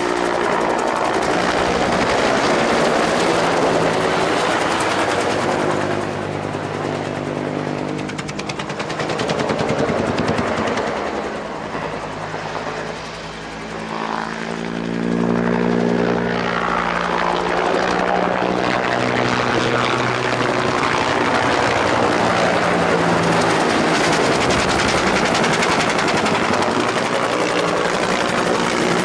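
AH-1S Cobra attack helicopter flying display manoeuvres, its two-bladed main rotor and engine running loud. The sound drops off around the middle as it moves away, then grows loud again as it swings back close overhead.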